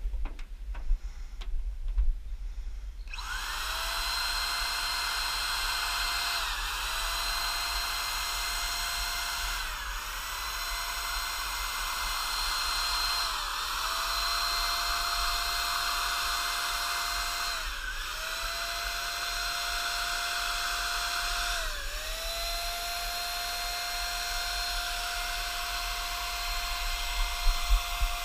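Topvork electric paint sprayer running with a steady high whine that starts about three seconds in, its pitch sagging briefly and recovering every few seconds, five times in all.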